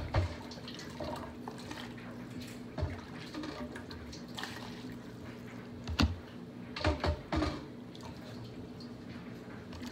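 Chicken broth being ladled into a plastic container: liquid dripping and pouring, with a few sharp knocks of the ladle against the pot and container. A steady low hum runs underneath.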